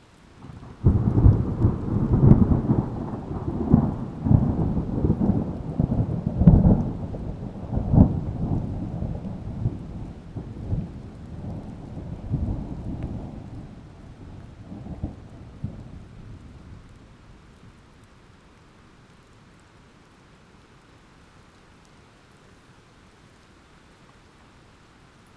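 A long rolling thunderclap over steady rain: it breaks suddenly about a second in, rumbles with several sharp cracks over the next seven seconds, then dies away gradually, leaving faint rain.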